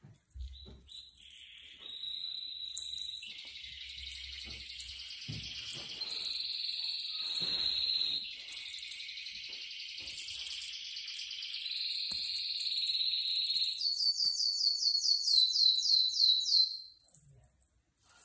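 High-pitched warbling trills, followed near the end by a louder run of quick falling whistles, about four a second.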